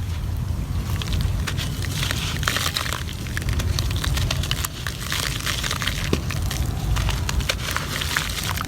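Gritty cement crumbling and being crushed: dense, crackling clusters of small cracks coming in waves, over a steady low rumble.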